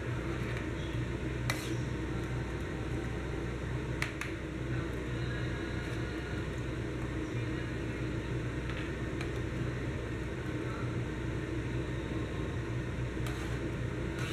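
Pot of fish curry in coconut milk simmering on a stove: a steady low hum and hiss, with three sharp clicks, one about a second and a half in, another around four seconds and the last near the end.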